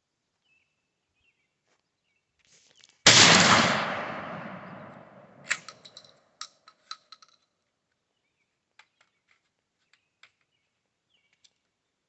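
A single 12-gauge pump shotgun blast about three seconds in, with a long echoing decay, followed by a few sharp clicks.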